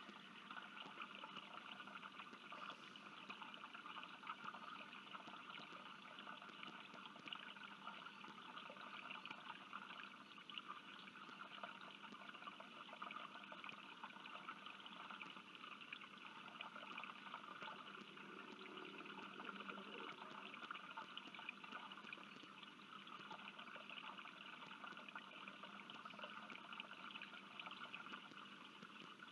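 Faint, steady trickle of running water with a fine bubbling crackle that does not let up.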